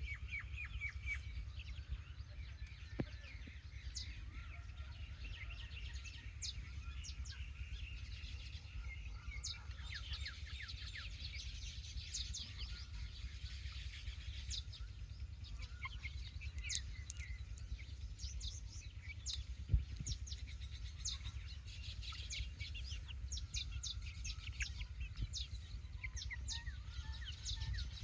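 A group of chicks peeping continuously, many short high chirps, often falling in pitch, overlapping one another over a steady low rumble. Two brief knocks cut in, about three seconds in and a louder one near twenty seconds.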